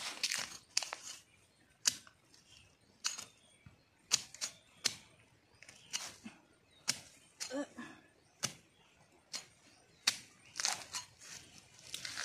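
Small long-handled hoe chopping into soil and dry bamboo leaf litter to dig out a bamboo shoot: sharp strikes about once a second, now and then two in quick succession.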